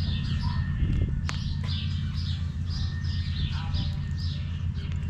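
Small birds chirping repeatedly over a steady low rumble of wind buffeting the microphone, with a couple of sharp clicks about a second and a half in.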